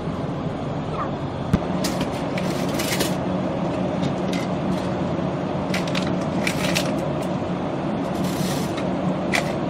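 Steady hum of refrigerated drink coolers, with a sharp click about a second and a half in and several brief rattles and rustles as cans are taken from the cooler shelf and put into a plastic shopping basket.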